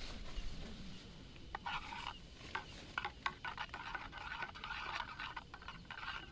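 A utensil stirring and scraping in a cooking pot or pan: a run of short, irregular scrapes and clicks starting about one and a half seconds in.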